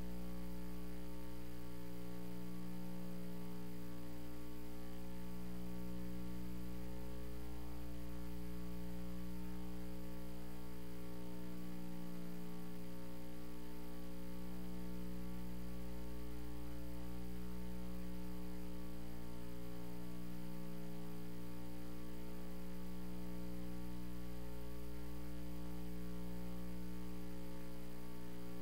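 Steady electrical mains hum with a stack of overtones, one band slowly swelling and fading every few seconds.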